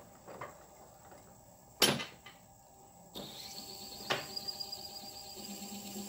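A sharp knock from the drilling setup on a wood lathe about two seconds in, then a steady hum with a high whine that sets in about a second later and runs on under a light click.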